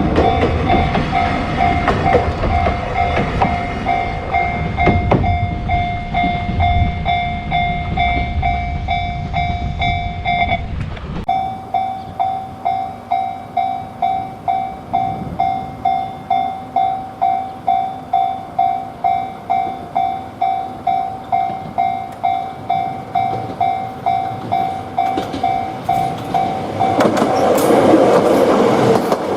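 Japanese railway level-crossing warning bell ringing in a steady 'kan-kan' rhythm of about two strokes a second, while a train rumbles past. The rumble stops abruptly about eleven seconds in, leaving the bell alone. Near the end a train's noise swells up again.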